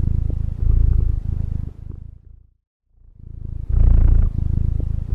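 Cat purring: a steady low pulsing in breath-long stretches that fades out about two and a half seconds in, then starts again after a short silence.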